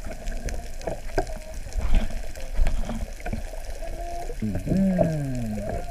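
Water sloshing and bubbling around a camera held underwater, muffled by the water, with scattered clicks. Near the end a muffled voice calls out through the water, its pitch sliding down.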